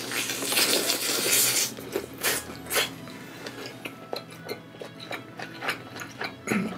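Close-miked eating of roast chicken: a loud, noisy bite over the first second and a half, then chewing with sharp, wet mouth clicks that grow smaller and sparser.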